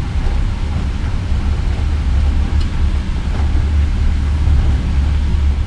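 Steady low rumble of the Indian Pacific passenger train rolling along the rails, heard from inside the carriage.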